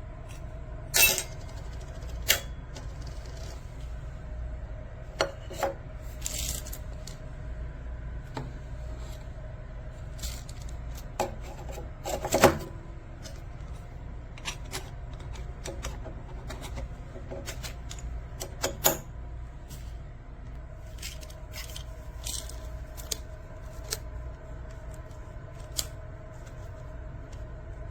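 Scattered light clicks and metallic clinks of small hard objects being handled, a few louder knocks among them, over a steady low hum.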